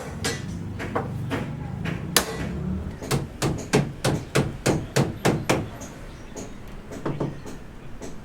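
Hammering: a few scattered blows, then a steady run of about ten strikes at roughly three a second, and two more near the end.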